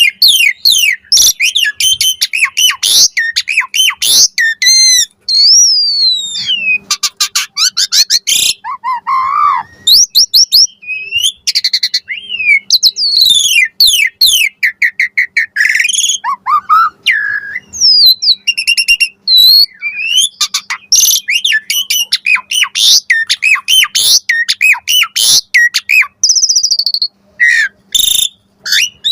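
Asian pied starling (jalak suren) singing a long, varied song of loud whistles, rising and falling glides, rapid trills and quick chattering notes, broken by short pauses.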